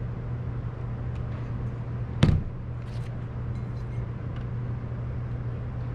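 A steady low hum, with one sharp knock about two seconds in as a metal 4-link bar is set down on the wooden bench while bars are swapped on the scale. A few faint clicks follow.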